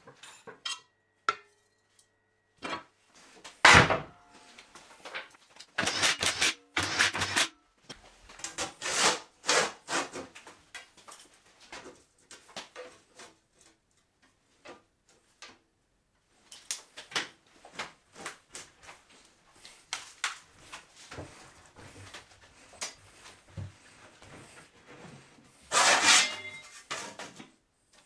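Workshop handling noises of a hand-operated sheet metal bender and a steel sheet: scattered knocks, clanks and scrapes. There are louder knocks about 4 s and 6 to 7 s in, a quiet spell in the middle, and a longer metallic clatter near the end.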